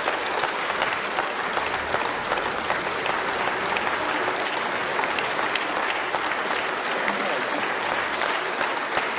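Applause from a large hall of parliament deputies: many people clapping steadily.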